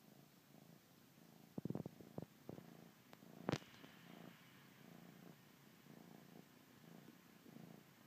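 Bengal kitten purring faintly and steadily while nursing on its blanket. A few soft clicks come about two seconds in, and a single sharper click about three and a half seconds in.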